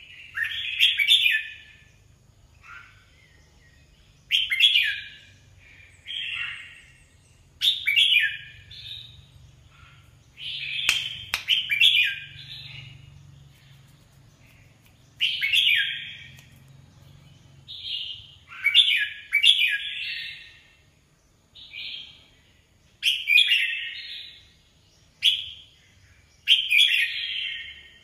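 Red-whiskered bulbul singing short, bright warbled phrases over and over, one every two to three seconds. A single sharp click comes about eleven seconds in.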